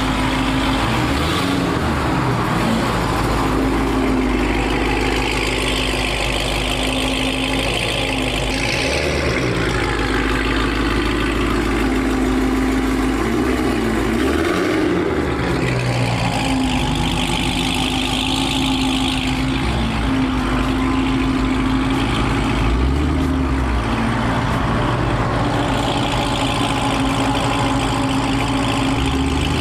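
Dodge Hellcat's supercharged V8 idling, its note swelling a few times.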